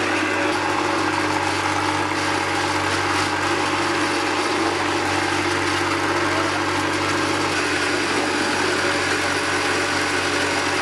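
Hollow-block making machine running with a steady mechanical hum while concrete mix is compacted in its steel mold. Some of the lowest tones drop out about three quarters of the way through.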